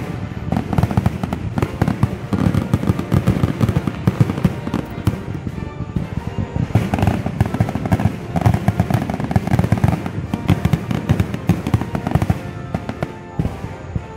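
Aerial fireworks bursting in quick succession, a dense run of bangs that carries on without a break.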